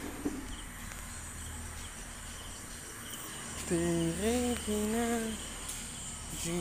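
Crickets chirring steadily over a low, even hum. A little past halfway a voice holds two drawn-out, wavering notes.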